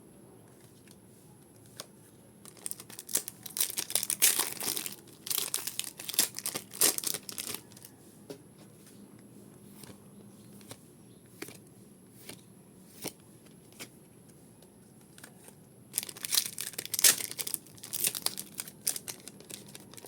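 Foil Pokémon booster pack wrappers being torn open and crinkled in two bouts, with small clicks and rustles between.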